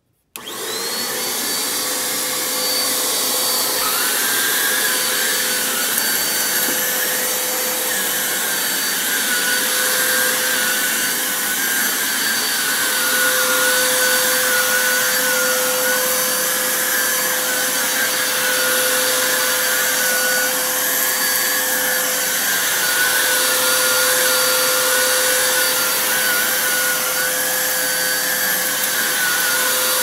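Dirt Devil Razor Pet upright vacuum cleaner switched on, its motor spinning up at once to a loud, steady rush of air with a fixed whine, then run over carpet. A higher whistle comes in about four seconds in and wavers up and down as the vacuum is pushed back and forth.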